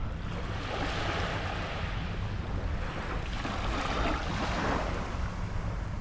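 Small, gentle sea waves washing up a sandy beach and drawing back. The hiss of the water over the sand swells about half a second in and eases near the end, over a steady low rumble.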